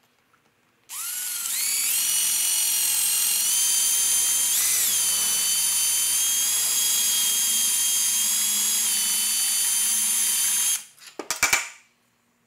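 A cordless drill runs steadily for about ten seconds, drilling out a copper bit on a small taillight bracket. Its motor whine rises as it spins up and dips briefly midway. It stops suddenly, followed by a few sharp knocks.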